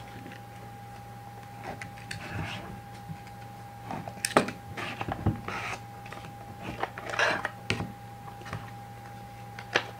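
Small cardboard box and clear plastic baseball cube being handled and opened by hand: scattered clicks, knocks and rustling, loudest about four seconds in and just before the end. A faint steady whine and low hum run underneath.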